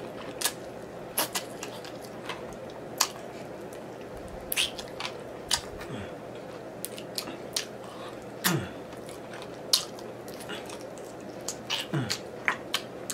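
Close-up wet eating sounds of a person gnawing sticky glazed chicken wing meat off the bone: irregular lip smacks, sucking and licking of fingers. Three short low sounds falling in pitch come from the eater's throat.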